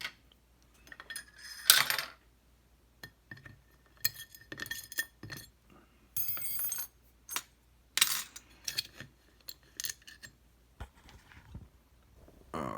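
Small metal tools and lock parts clicking and clinking against each other and a hard surface, one clink ringing briefly.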